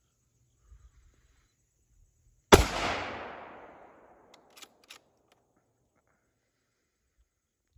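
A single shot from a Remington 770 bolt-action rifle in .308: one sharp crack about two and a half seconds in, its echo fading over about a second and a half, then two short clicks about two seconds later.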